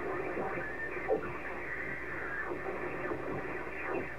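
Shortwave radio demodulating lower sideband on the crowded 40-metre amateur band while being tuned across it: steady static hiss with garbled, off-tune sideband voices and whistles sliding in pitch as the frequency moves.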